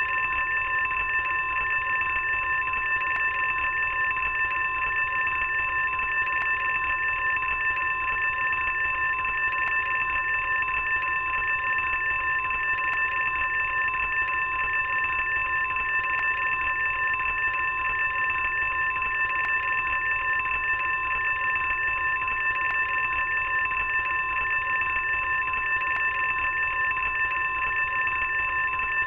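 Fire alarm ringing continuously without a break, a steady high-pitched tone.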